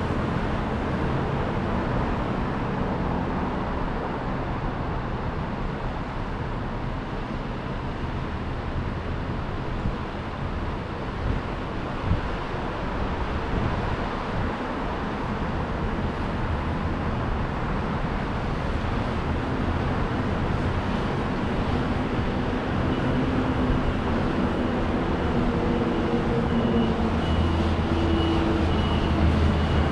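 City street traffic: a steady roar of passing vehicles, with a heavy engine's hum growing louder in the last third. Two short knocks come a little before halfway, and a faint high whine joins near the end.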